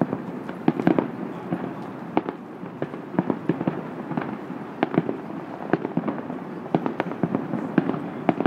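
Aerial fireworks shells bursting in a rapid, irregular string of bangs, several a second.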